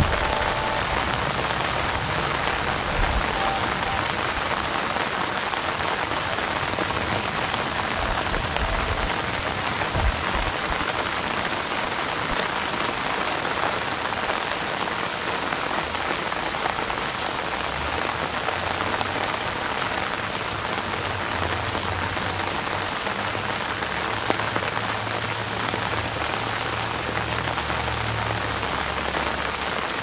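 Steady rain falling on the leaves of an apple tree, with a low rumble underneath in the second half.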